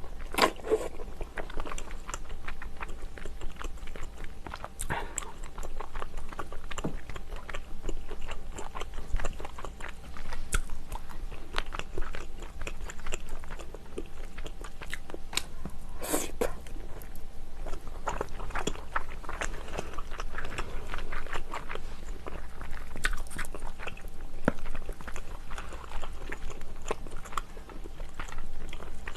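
Close-miked chewing and wet mouth sounds of a person eating seafood stew with rice: a steady run of small clicks and smacks, with a few louder ones now and then.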